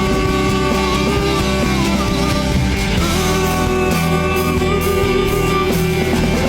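Rock music with electric guitar and a held melodic line, at a steady loud level.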